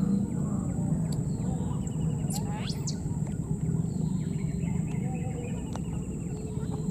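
Outdoor ambience: a steady low hum and a steady high whine, with a few short, thin rising squeaks or chirps, the clearest about two and a half to three seconds in.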